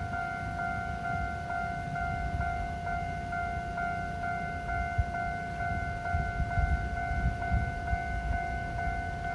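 Japanese railroad crossing's electronic warning bell ringing, a rapid, evenly repeating ding, over a low rumble.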